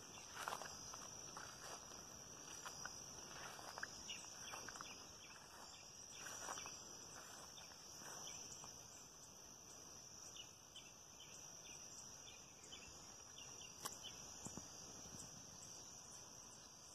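Faint, steady, high-pitched chorus of crickets or similar insects, with scattered soft footsteps through grass, mostly in the first half.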